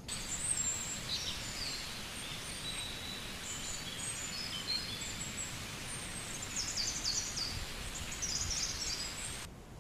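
Birds chirping and calling over a steady outdoor hiss: many short, high whistled notes, some sliding up or down, in scattered bursts that come thickest in the second half.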